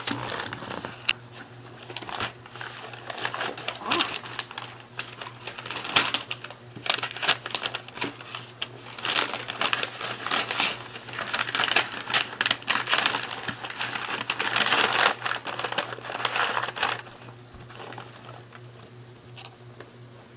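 Wrapping paper crinkling and tearing as a small child works at a gift, the rustle and rip busiest in the middle and dying down near the end. A faint steady low hum lies underneath.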